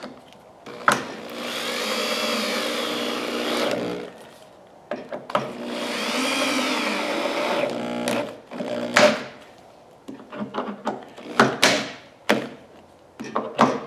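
Corded electric drill driving wood screws, two runs of about three seconds each with the motor speed rising and then falling as each screw goes in. These are followed by a series of sharp clicks and knocks.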